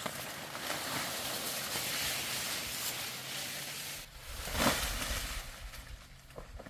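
Rustling and brushing noise, with one louder swish about four and a half seconds in.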